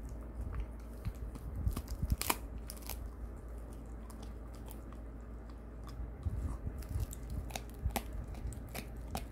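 Shiba Inu biting and crunching on a large jerky-wrapped chew bone, with sharp crunches around two seconds in and again near the end, and quieter gnawing in between.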